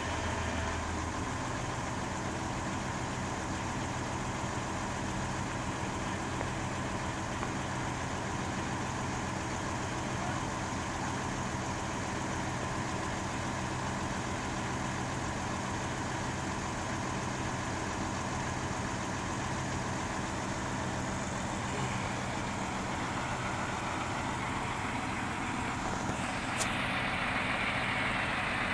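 Heavy diesel engine running steadily at idle. Near the end there is a sharp click, and then a louder rushing hiss joins the engine.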